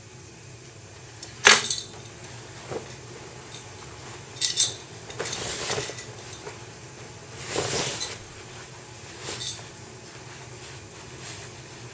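Handling and movement noises close to the microphone: a sharp knock about a second and a half in, a quick double click a few seconds later and a lighter one near the end, with two longer brushing rustles in between, like fabric or footwear being moved.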